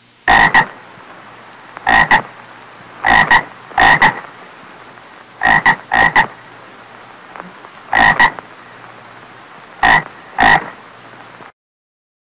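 A frog croaking: short, sharp croaks, mostly in pairs, every one to two seconds over a steady low hum. The croaks stop suddenly about a second before the end.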